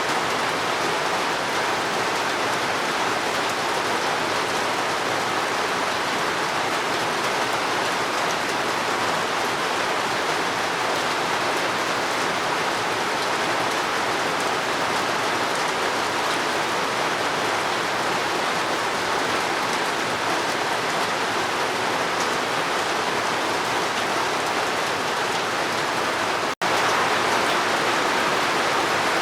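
Steady rain falling, an even hiss of drops. About 26 seconds in the sound cuts out for a split second and resumes slightly louder, as at an edit splice.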